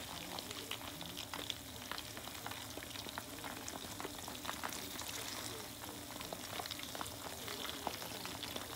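Karaage (batter-coated chicken pieces) deep-frying in oil in a small aluminium mess tin: a steady sizzle with frequent small crackling pops.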